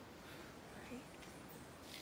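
Near silence: faint steady background hiss, with one small soft sound about a second in.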